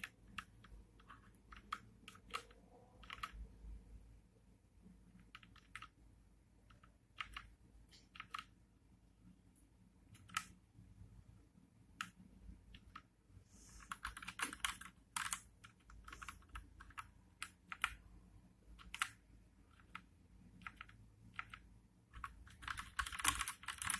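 Typing on a Motospeed CK104 mechanical keyboard with linear Red switches: scattered single keystrokes, with a quick run of typing midway and another near the end. The keystrokes are fairly soft clacks, without the click of Blue switches.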